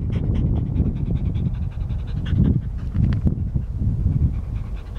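A dog panting.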